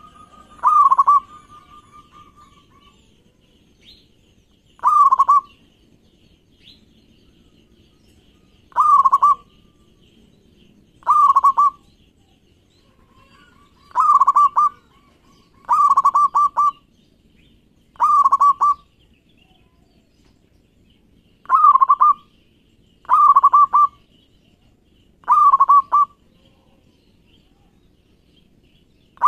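Zebra dove (local perkutut) singing its cooing song: about ten short, rolling coos at much the same pitch, spaced a couple of seconds apart. A few of them open with a soft held note.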